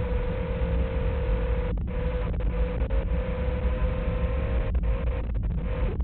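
Small FPV drone's brushless motors giving a steady whine over low wind rumble, muffled with no highs, as picked up on the aircraft's video link. The sound drops out briefly several times as the link breaks up. Right at the end the whine stops as the receiver loses signal and the drone goes into failsafe.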